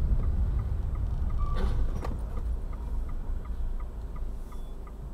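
Car cabin sound from a dashcam: a turn-signal indicator ticking evenly, about two to three clicks a second, over low engine and road rumble that fades as the car slows. A sharp knock comes about two seconds in.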